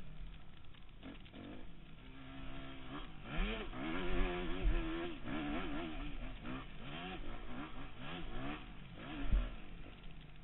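Dirt bike engine revving as the bike is ridden on a rough trail. The pitch rises sharply about three seconds in, then wavers up and down with the throttle. There is a heavy thump near the end.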